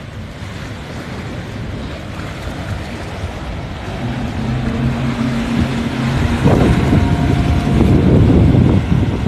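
Motorboat engine passing through the inlet: a low steady hum comes in about four seconds in and grows louder, under heavy wind buffeting the microphone, which gets louder and rougher toward the end.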